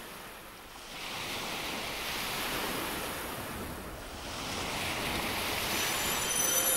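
Ocean surf washing onto a shore, the noise swelling in about a second in, easing off, and swelling again about four and a half seconds in. Music comes in right at the end.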